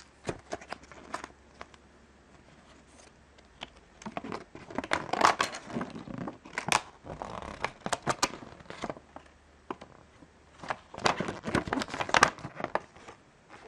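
Crinkling and rustling of a LEGO Minifigures plastic blind bag and its folded paper leaflet being handled and unfolded, in three bouts of crackling with short pauses between them.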